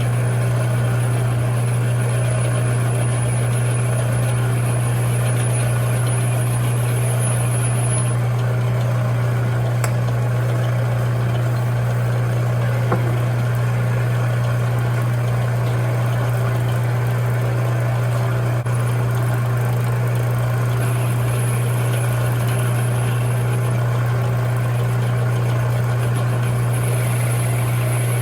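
Metal lathe running steadily with a loud, constant low hum while a 14 mm spark-plug socket is turned down to fit a narrow plug well, a thin high whine over it for the first eight seconds or so.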